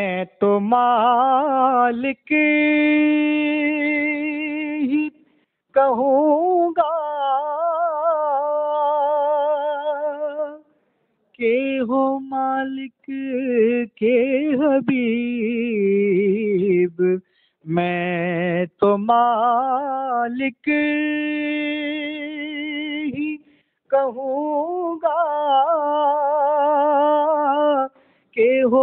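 A naat sung by a single unaccompanied voice, holding long ornamented notes with a wavering vibrato, in phrases of about five seconds broken by brief pauses.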